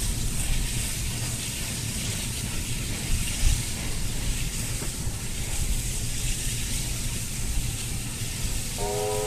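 Distant SY-class steam locomotive working a train, a steady low rumble with a hiss of steam. Near the end its steam whistle starts to sound, a chord of several notes held steady.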